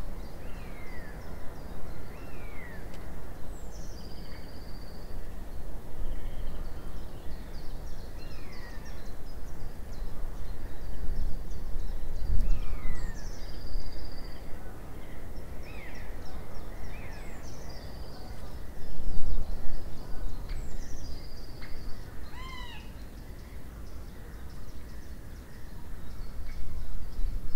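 Woodland birdsong: a high call that drops and then holds a short note, repeated every few seconds, alongside shorter falling chirps from other birds, and one short harsher call a little past the middle. Under it runs a steady low rumble.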